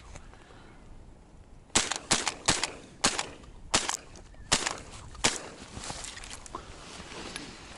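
A quick irregular run of about ten sharp knocks and clicks over three and a half seconds: handling noise as the camera is swung against the blind's branches and burlap netting.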